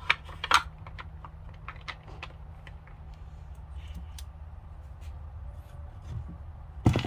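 Small clicks and ticks of a screw and a cordless screwdriver being handled and set in place, with two sharper clicks at the start and one loud knock near the end, over a steady low hum.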